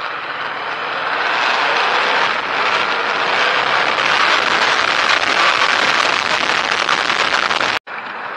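Rushing wind and road noise from a moving vehicle in traffic. It grows louder about a second in as the vehicle gathers speed. It cuts out abruptly near the end, then returns quieter.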